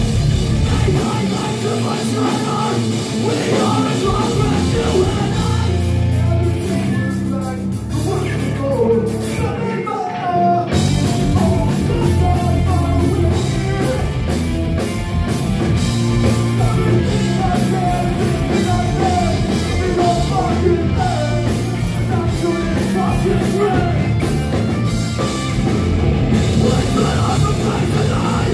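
Live rock band playing loud, with a vocalist singing over it; the band drops out for a moment about ten seconds in, then comes back in.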